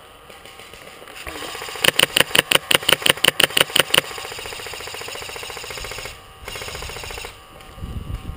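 Airsoft rifle firing a rapid string of about a dozen shots, around six a second, over a steady mechanical noise.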